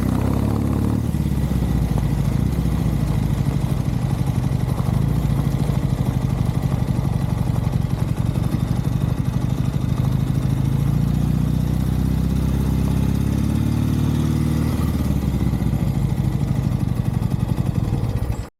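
Norton Commando's air-cooled parallel-twin engine running steadily at low revs, its pitch lifting slightly and settling back about two-thirds of the way through. The sound cuts off abruptly just before the end.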